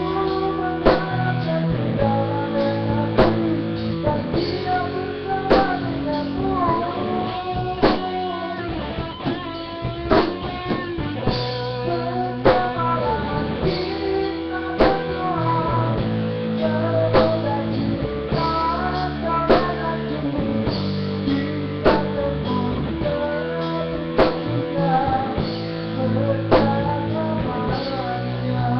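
A band playing a song: guitar and drum kit with a sung melody over them, at a steady beat.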